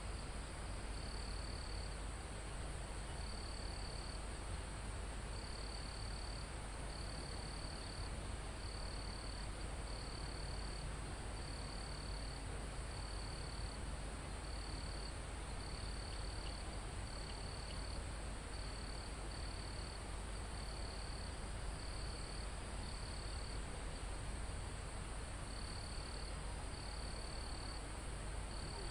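Crickets and other insects in a steady chorus: a constant high-pitched drone, with short chirping trills repeating about once a second at a lower pitch. A soft low rumble runs underneath.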